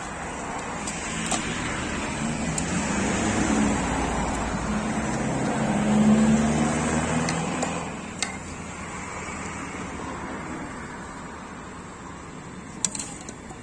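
A motor vehicle passing close by: its engine hum and road noise swell over several seconds, are loudest about six seconds in, then fade away. A few sharp clicks follow near the end.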